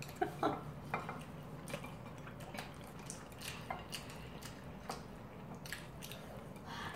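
Quiet eating sounds: scattered light clicks of chopsticks against the bowls, with soft wet chewing of noodles and rice cakes.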